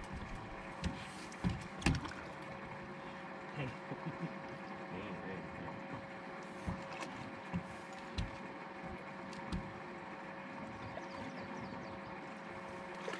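Boat motor running steadily at low speed, a constant hum with several held tones, with scattered low thumps and knocks over it.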